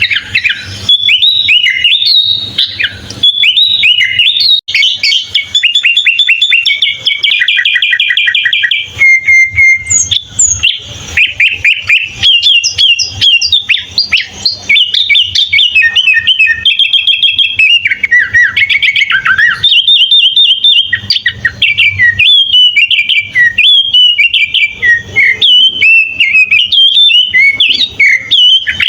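Sooty-headed bulbul (kutilang) singing continuously: a long, varied run of quick whistled chirps and phrases, broken by fast rattling trills of repeated notes.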